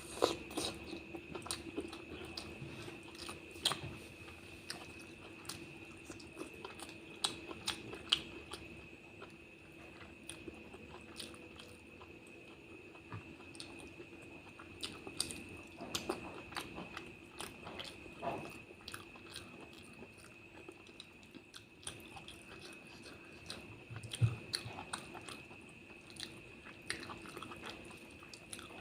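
Close-miked chewing of curry and rice: irregular wet smacks and clicks of the mouth at work, over a faint steady whine.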